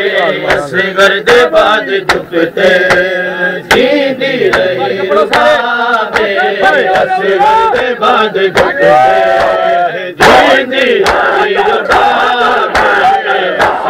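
A crowd of men chanting a Muharram mourning lament (noha), with a lead voice bending in pitch over the group. Repeated sharp slaps of hands on bare chests (matam) keep time through the chanting.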